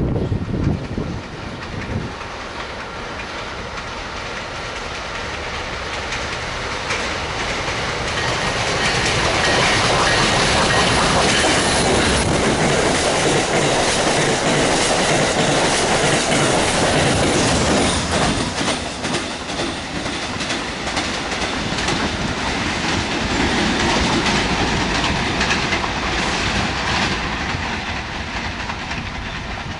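Amtrak passenger train with stainless-steel Amfleet coaches passing close by at speed: a steady rush and clatter of wheels on the rails. It builds as the train approaches, stays loudest through the middle, then eases.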